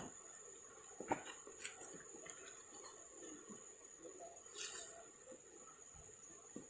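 Faint, steady high-pitched shrilling of insects, with a few soft clicks and knocks and a brief rustle about halfway through.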